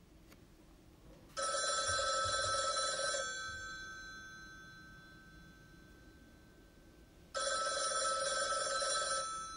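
Telephone ringing twice, each ring a trilling bell tone about two seconds long that fades out slowly after it stops.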